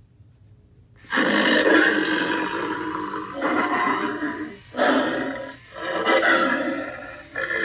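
Home Depot 7 ft Howling Werewolf animatronic prop playing its recorded werewolf vocal sound effects through its built-in speaker. It starts suddenly about a second in and runs as several loud stretches separated by short breaks.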